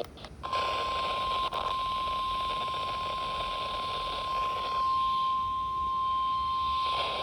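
NOAA Weather Radio warning alarm tone: a single steady 1050 Hz beep starting about half a second in and held for several seconds over the radio's hiss, signalling that a warning message follows.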